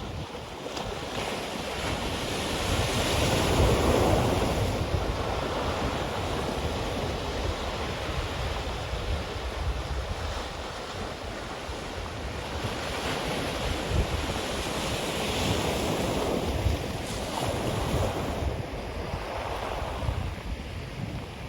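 Surf washing onto a black sand beach, surging and easing, loudest about four seconds in, with wind buffeting the microphone throughout.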